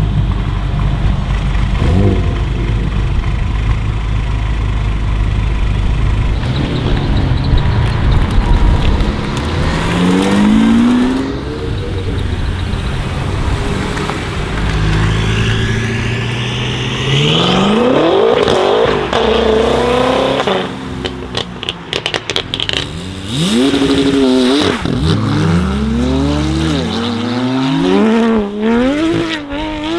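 BMW M5 F10's twin-turbo V8, breathing through catless downpipes and an M Performance exhaust, idles steadily for several seconds, then is revved in rising and falling sweeps. In the second half come quick repeated blips with sharp crackles on the overrun.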